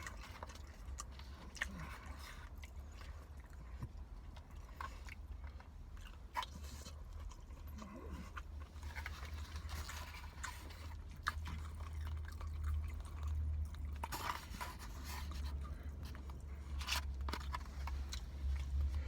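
A person chewing a mouthful of chicken biryani, with scattered small clicks and crunches of biting and mouth sounds, over a steady low hum.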